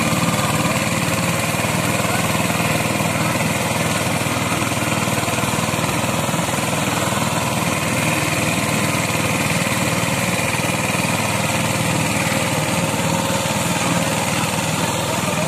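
Eicher 188 18 HP mini tractor's diesel engine running steadily under load as it pulls a loaded sugarcane trailer across soft, muddy ground.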